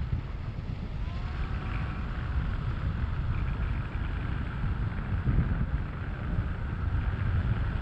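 Steady wind rushing over the camera microphone of a tandem paraglider in flight, a deep, buffeting rumble.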